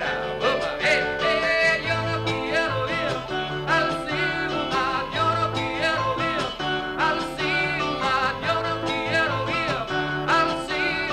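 Live band music in a country-folk style: a mallet keyboard and a strummed acoustic guitar over a bass line, with no words sung.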